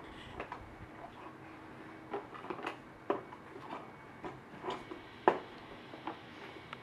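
Hard plastic toys on the tray of a Fisher-Price Rainforest baby booster seat clicking and clacking as a baby's hands bat and turn them. The knocks come irregularly, the loudest about five seconds in.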